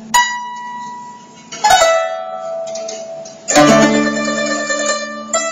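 Guzheng (Chinese zither) played solo: slow single plucked notes ringing out, about one every second and a half, with a fuller, louder chord of several strings a little past halfway.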